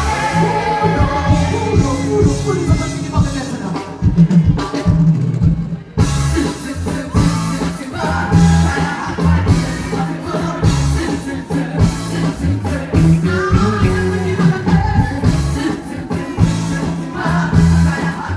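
Music with singing over a steady drum beat; the high end thins out briefly about four seconds in and returns abruptly about two seconds later.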